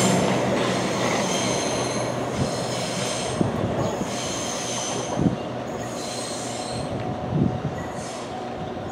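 Southeastern Class 395 'Javelin' electric high-speed train pulling away over curved track, its wheels squealing in high thin tones that come and go while its running fades as it recedes. A couple of short knocks sound in the second half.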